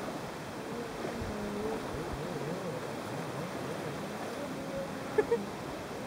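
Distant Kawasaki Ultra 310R jet ski running out on the water, its engine note rising and falling as it rides, over a steady wash of wind and water. Two short sharp knocks sound a little after five seconds in.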